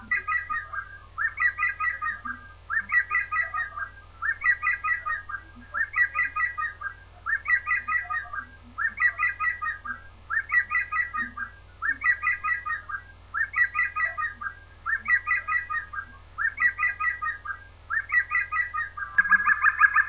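Green woodpecker calling: a rapid, ringing laugh-like series of notes, repeated over and over about every one and a half seconds. The last phrase, near the end, is louder.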